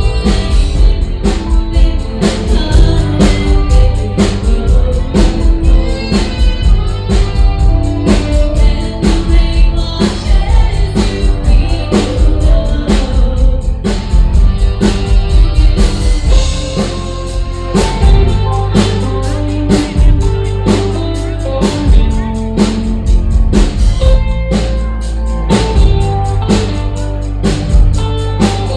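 A female singer with a band, drum kit and guitar, performing a country-style song with a steady beat.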